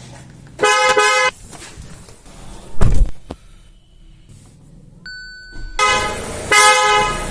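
Car horn honking twice, the second honk longer, with a loud low thump between the two honks and a short high beep just before the second.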